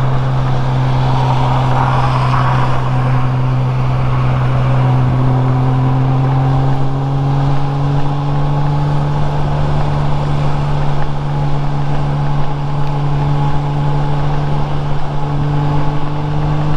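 Honda Gold Wing GL1500's flat-six engine running steadily at cruising speed, its pitch rising a little for a few seconds about five seconds in, under a steady rush of wind and road noise.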